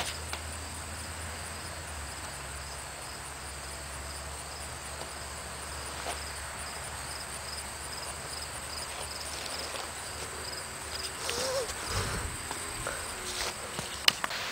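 Crickets chirping in a steady, regular pulsed rhythm over a background hiss, with camera handling rustles toward the end and one sharp click just before the end.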